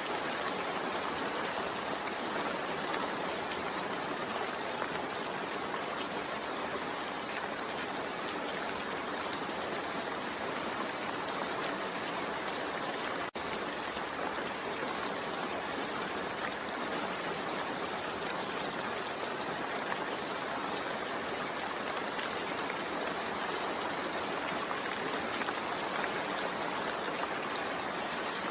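Steady rain falling, an even hiss with no let-up, broken only by a momentary dropout about thirteen seconds in.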